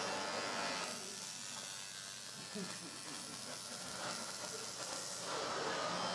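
Steady electrical buzz and hiss from a large Tesla coil energising the hall, with the buzz easing from about a second in and coming back near the end.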